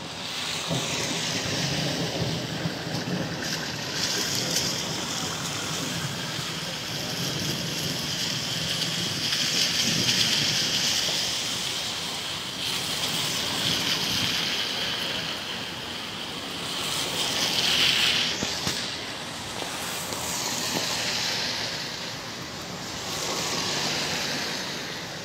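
Heavy rain pouring down, swelling and easing repeatedly as the wind gusts.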